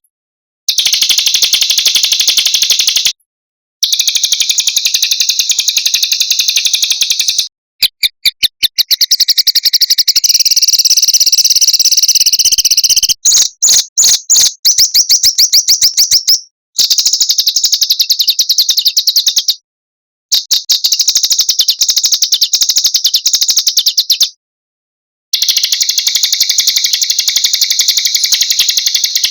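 Small songbirds singing long, rapid trills of high, chattering notes. The song stops dead and starts again abruptly several times, as in an edited bird-song training (masteran) recording.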